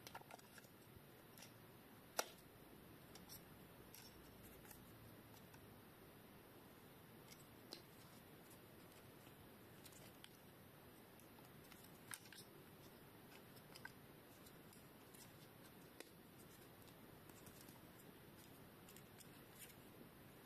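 Near silence broken by sparse, faint clicks and taps of a GoPro HERO12 Black camera and its battery being handled while the battery is fitted, with one sharper click about two seconds in.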